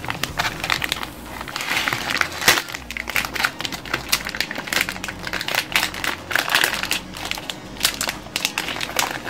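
Packaging crinkling and crunching as a boxed screw assortment kit is handled and worked out of it, with irregular crackles throughout and one sharper crack about two and a half seconds in; the kit is stuck in its packaging.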